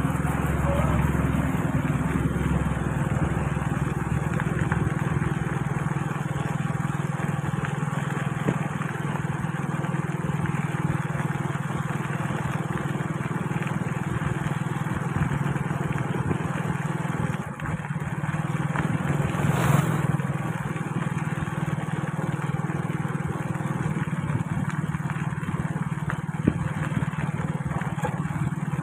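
Motorbike engine running steadily while riding along a dirt road, with wind and tyre noise; a short rush of noise comes about twenty seconds in.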